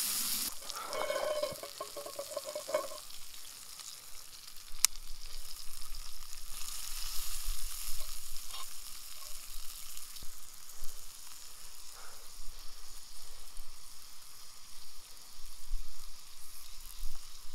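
Rainbow trout frying in olive oil in a cast iron pan, a steady sizzle. A short pitched sound comes in the first few seconds, and there is a single sharp click about five seconds in.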